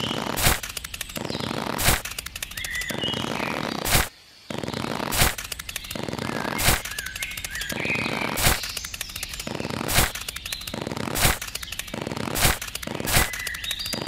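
Sharp knocks repeating roughly every one and a half seconds over a steady hiss, with a few short high chirps in between; the sound cuts out briefly about four seconds in.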